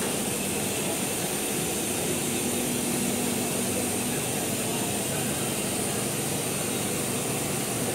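Steady hum and whoosh inside a C751B MRT train car, with a few faint level tones and no rising or falling motor whine.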